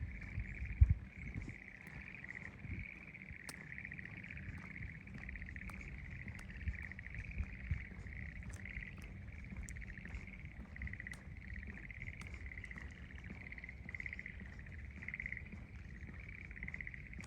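Chorus of frogs calling, a steady pulsing trill that runs on without a break, over a low rumble with a few dull thumps, the loudest about a second in.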